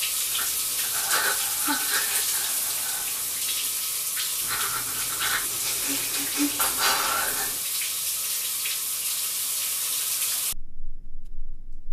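Shower water running in a steady hiss, with a woman's faint sobs over it. The water sound stops abruptly about ten and a half seconds in.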